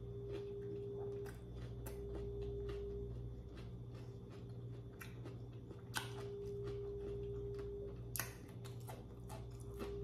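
Close-up eating sounds: a person chewing food with frequent small wet mouth clicks, and a couple of sharper clicks about six seconds in and just after eight seconds.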